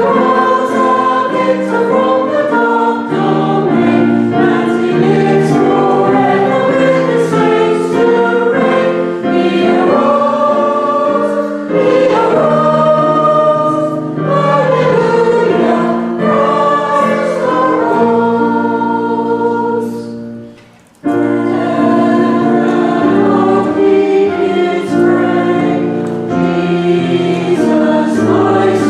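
A choir singing a hymn in chorus, with a brief break about 20 seconds in before the next verse starts.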